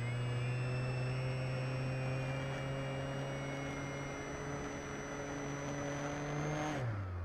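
Scale P-51 Mustang RC model's motor and propeller, picked up on board, running at high throttle with a steady whine and rushing air, its pitch creeping slightly upward. Near the end the throttle is cut and the whine drops away sharply.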